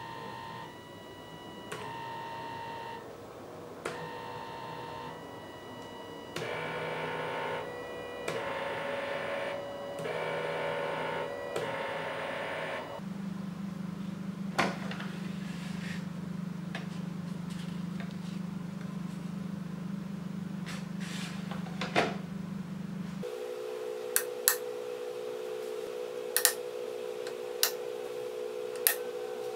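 Small stepper motors from scrap DVD drives whining as the plotter's axes are jogged, in a run of short pitched bursts about a second each. Then a steady low hum sets in, later changing to a steadier, higher tone, with a few sharp clicks.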